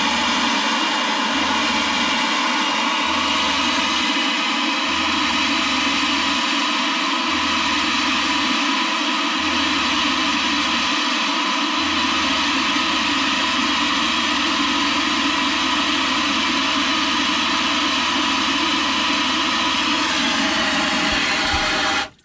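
Luxe Bidet Neo 120 nozzle spraying water into a plastic container, a loud steady rush of water that cuts off suddenly near the end as the control knob is turned off.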